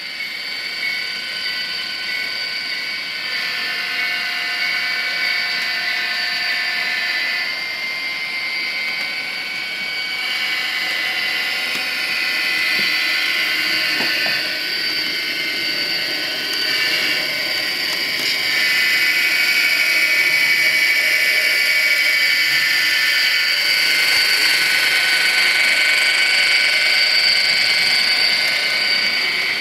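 HO scale model trains running: the whine of small electric motors mixed with diesel engine sound from a DCC sound decoder (Tsunami) through a tiny speaker. It is steady, with several held high tones, and grows louder a little past halfway as a train comes closer.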